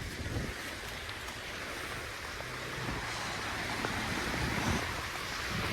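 Steady street traffic on snow-wet roads: the even hiss of tyres on slush and a running engine hum.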